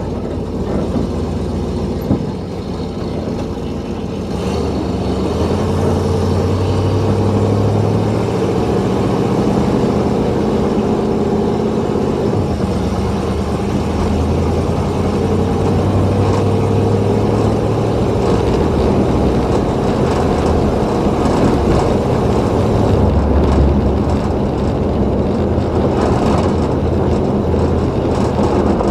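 1963 Oldsmobile 98's 394 V8 running while the car is driven, its engine note rising and falling gently with speed. The engine is still warming up.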